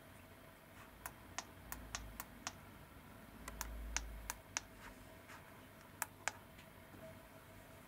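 About a dozen sharp, irregular clicks and ticks over a few seconds, with a brief low rumble in the middle.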